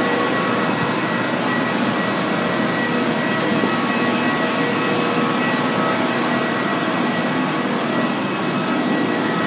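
Steady airport apron noise from aircraft turbines: an even roar with a thin steady whine running through it.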